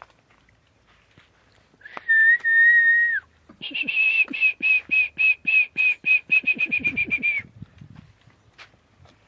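A person whistling: one long steady note that drops in pitch as it ends, then a quick run of short repeated whistled notes, about five a second and speeding up before they stop.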